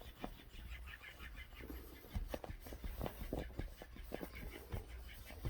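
A puppy chewing and smacking its lips while eating: a run of irregular short smacks.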